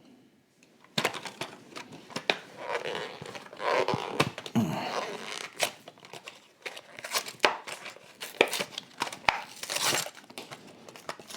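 Majorette toy car packaging being pried and torn open by hand, a hard-to-open pack: crinkling and tearing with many small clicks and snaps, starting about a second in.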